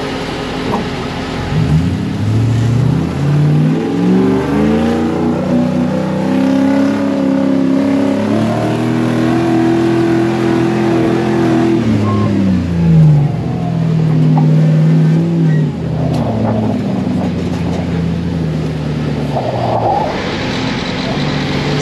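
Off-road buggy engine accelerating: its pitch climbs over several seconds and holds high, drops back about halfway through, then runs steadily at a lower pitch, over a steady rushing noise.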